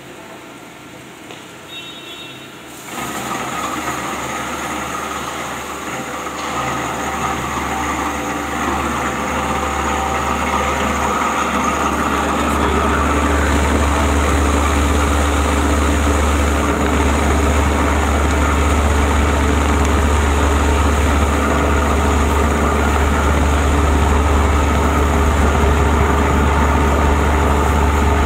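Plastic-film agglomerator running: its motor-driven rotor spins in the steel drum and chops clean waste plastic film fed into it, a steady machine hum with a deep low drone. The sound steps up about three seconds in, grows louder over the next ten seconds or so, then holds steady.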